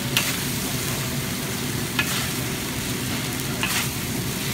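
Food sizzling steadily in a hot pan while it is stirred, with three sharp clacks of a utensil against the pan spread over the few seconds. A steady low hum runs underneath.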